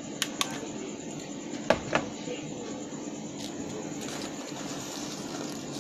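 Small electronic components (resistors, capacitors, an IC) handled by fingers on a tabletop: a few light clicks, the loudest about two seconds in, over a steady background hum.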